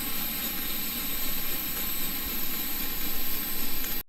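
Pressurised white-gas backpacking stove burning at full flame, a steady rushing noise that sounds like a train; the priming burn-off is done and the flame is running blue. The sound cuts off suddenly near the end.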